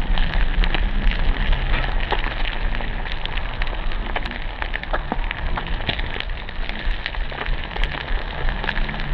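Whole fish frying on a large flat griddle: a steady sizzle with many small crackling spatter pops.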